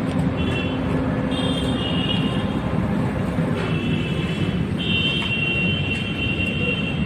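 Road traffic noise, a steady rumble of passing vehicles. A high steady tone sounds several times over it, the longest for about two seconds near the end.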